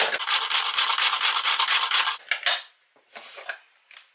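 Manual pull-cord hand chopper being pulled, its spinning blades rasping and rattling through diced beetroot in quick repeated strokes. The loud whirring stops abruptly about two seconds in, followed by a few faint short knocks.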